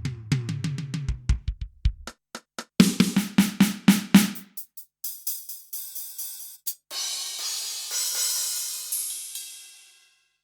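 Kurzweil K2000 synthesizer drum-kit program played from the keyboard, dry with no effects. Low pitched drum hits come first, then a quick run of tom- or snare-like hits, then cymbal strikes, ending in a long crash-cymbal wash that fades out near the end.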